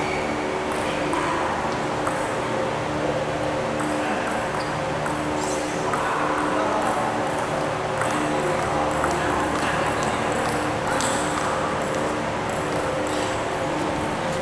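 Table tennis balls clicking on tables and bats in scattered, irregular ticks.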